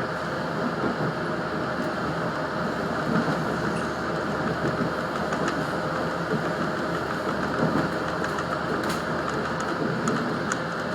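Cabin noise of an Adelaide 3100 series diesel railcar running between stations: a steady drone of engine and wheels on rail, with a faint steady tone and occasional light clicks.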